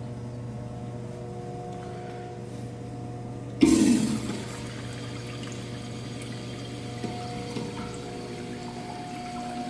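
Flushometer valve on an American Standard Washbrook urinal flushing. A sudden rush of water comes about three and a half seconds in, loudest at first and easing off within a second, then water keeps running down the bowl.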